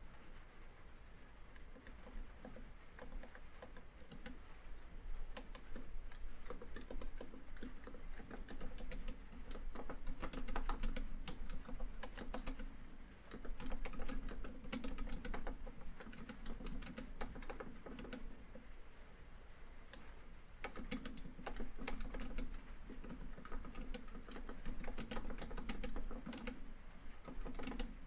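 Laptop keyboard typing in quick runs of keystrokes with short pauses between them, over steady rainfall on a tin roof.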